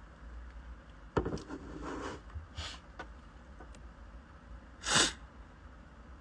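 Low room hum close to a phone's microphone, with a click about a second in and one loud, short breathy burst about five seconds in, like a breath or sniff right at the microphone.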